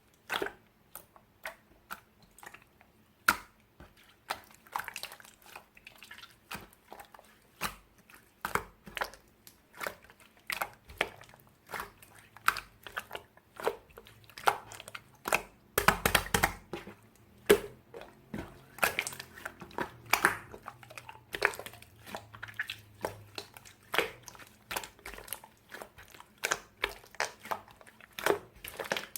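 Slime being squeezed and pressed by hand, giving irregular sticky clicks and crackling pops, a few every second.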